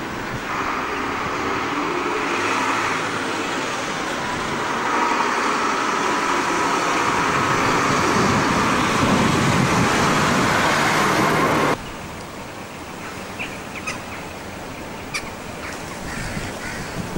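Loud, steady outdoor rushing noise that cuts off suddenly about twelve seconds in, leaving quieter ambience with a few short high chirps.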